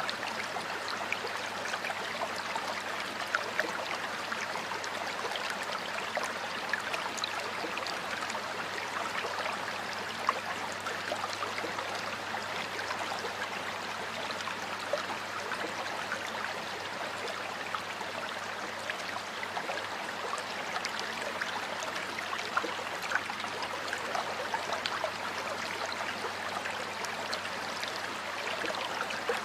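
Stream water flowing steadily: an even rush of running water with many small splashes.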